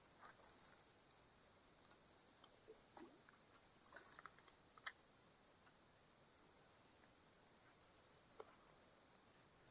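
Insects trilling steadily at a high pitch, with a few faint clicks.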